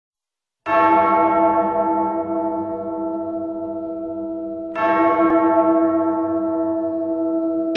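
A deep bell-like tone struck twice, about four seconds apart, each strike ringing on with many overtones and slowly fading.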